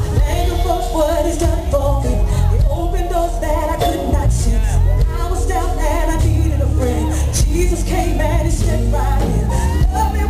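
Live gospel music: a band with a heavy bass, and a singer's voice wavering in long held notes over it.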